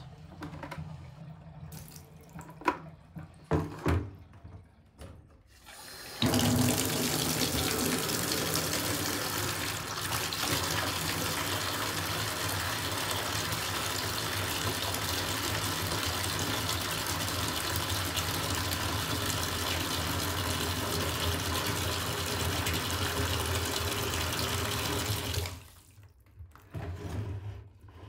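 Bathtub tap running a stream of water into a plastic bucket, a steady splashing fill. It comes on about six seconds in and is shut off abruptly a couple of seconds before the end. A few sharp knocks come before it starts.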